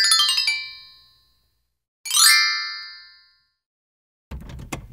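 Chime sound effect: a fast falling run of ringing bell-like tones, then about two seconds in a fast rising run that rings out, followed near the end by a quick cluster of clicks.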